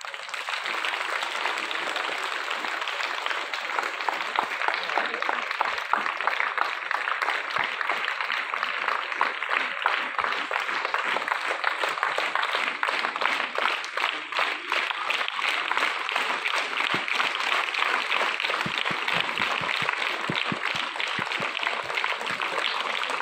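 Audience applauding: many hands clapping together in a dense, unbroken stream at a steady level.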